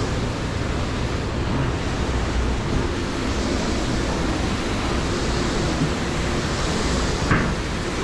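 Steady rushing noise of a running fan, with a faint hum under it and a brief knock about seven seconds in.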